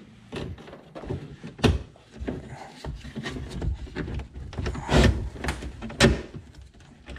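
Irregular knocks and clunks of a kayak's seat and seat pan being worked loose against the plastic hull, with rubbing and rattling between them; the loudest knocks come a little under two seconds in, at about five seconds and at about six seconds.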